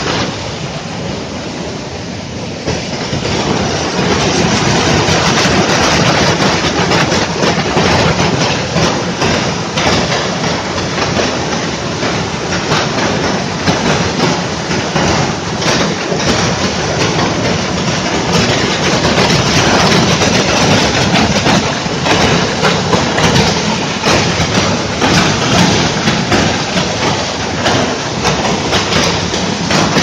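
A waterfall rushing steadily as a stream of water pours down a rock chute into a pool. It gets louder about three seconds in.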